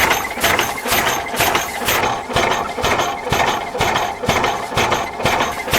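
A machine clanking in a steady rhythm, about two knocks a second, with a short high metallic squeak on the beats.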